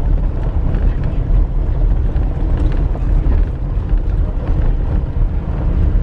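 Minibus driving along a rough dirt road, heard from inside the cabin: a steady low rumble of engine and tyres with small rattles.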